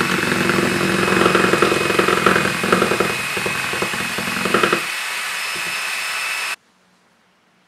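Cordless drill spinning a whisk-beater attachment to mix starch and water in a stainless steel bowl: a steady motor whine with a rattling clatter from the beater in the steel bowl for the first five seconds or so. The drill then runs smoothly on its own for a couple of seconds and cuts off suddenly, leaving near silence.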